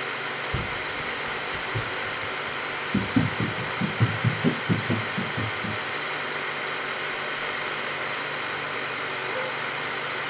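BGA rework station running with a steady, even whir. About three seconds in comes a quick run of about ten soft low knocks, some four a second.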